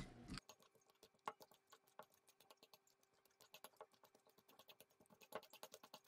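Faint, irregular clicking and tapping of a metal fork mashing avocado chunks against a stainless steel mixing bowl, the clicks coming thicker in the second half.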